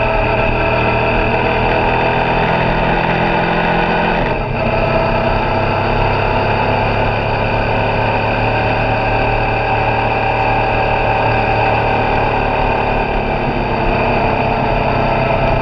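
Suzuki V-Strom 650 XT's V-twin engine running under way, with wind rush on the microphone. About four seconds in the engine note breaks briefly and then carries on lower.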